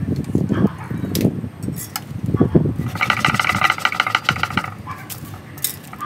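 Gloved hands handling a potted ficus bonsai: leaves and branches rustling, with knocks and a few sharp clicks. About three seconds in, a pulsing, buzzy animal call lasts about a second and a half.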